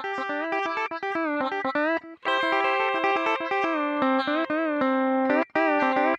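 Background music: a guitar playing a melody of quick notes with sliding, bending pitches.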